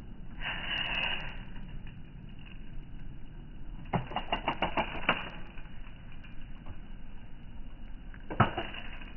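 Daisy Red Ryder BB gun: a quick run of about eight sharp clicks around four seconds in, then a single sharp shot near the end, the loudest sound. A short rustle comes about half a second in.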